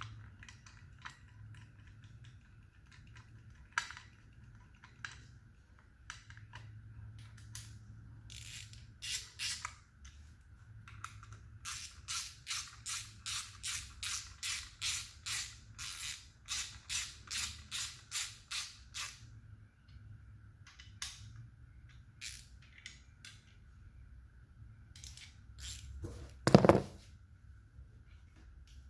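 Hand ratchet snugging a timing-guide bolt, its pawl clicking in quick back-and-forth strokes, about two to three a second for several seconds midway, with scattered clicks of tools and hardware around it. A single loud knock near the end.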